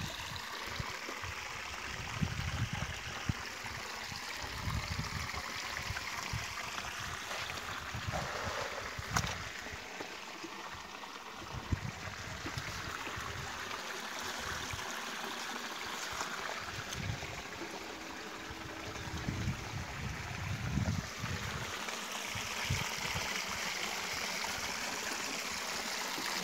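River water running over rocks: a steady rushing hiss. Irregular low thumps and a few sharp clicks come and go over it.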